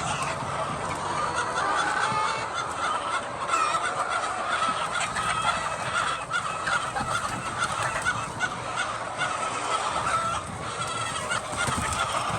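A large flock of hens clucking and squawking at once, a continuous chorus of overlapping calls.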